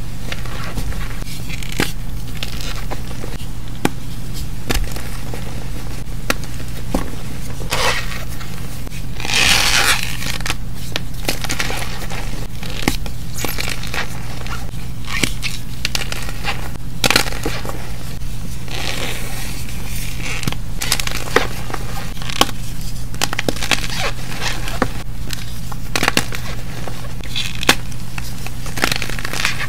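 Fingers squeezing and pressing cornstarch packed on a block of gym chalk: quick crunching and squeaky crackling as the powder compacts and the chalk crumbles, with a denser burst about ten seconds in, over a steady low hum.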